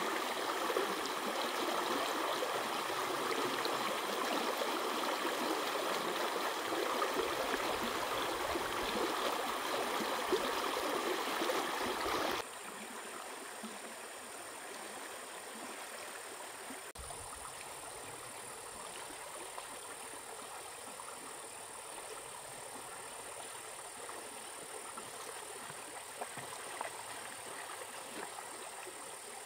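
Stream water flowing steadily, loud and close at first, then about twelve seconds in it cuts suddenly to a quieter, more distant flow.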